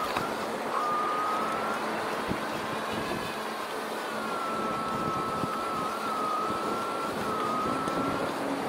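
Electric fat-tyre bike's hub motor whining at a high, slightly wavering pitch that cuts in and out as the bike rides, over a steady rush of wind and tyres rolling on sand.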